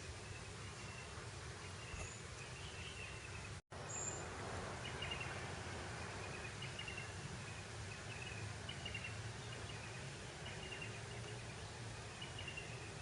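Breeze blowing over open grassland, a steady soft rush, with scattered short chirps throughout. The audio cuts out for an instant about three and a half seconds in.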